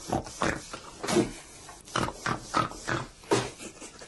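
A man imitating hawking and spitting: a string of short, rough throat-clearing and spitting noises in quick, irregular succession.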